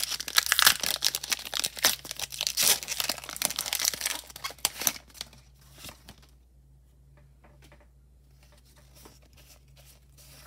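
Foil booster-pack wrapper being torn open and crinkled by hand for the first five seconds, then faint taps and slides of trading cards being handled.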